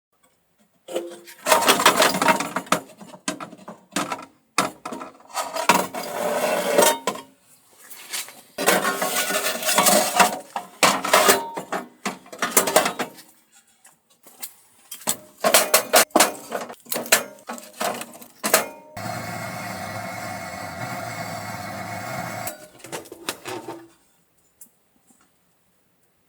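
Metal stove tool clanking and scraping against the steel firebox of a wood stove as a built-up bed of coals is raked and stirred to burn it down, in rapid runs of clanks with short pauses, then a steady even noise for about five seconds near the end.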